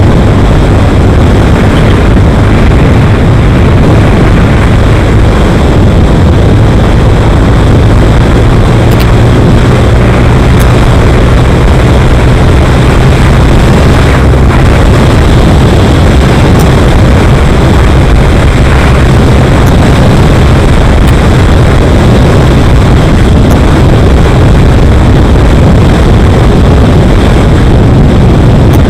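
Loud, steady wind rush on the microphone of a vehicle-mounted camera moving at speed through traffic, over a constant low drone.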